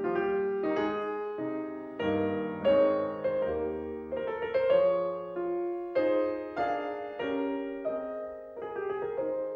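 Background piano music: single notes and chords struck every half second or so, each fading as it rings.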